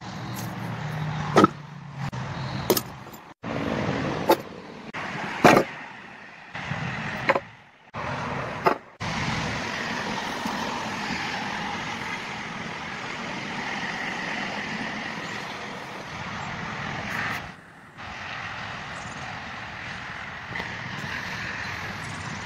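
Several sharp knocks in the first nine seconds, between abrupt breaks in the sound, then steady outdoor background noise.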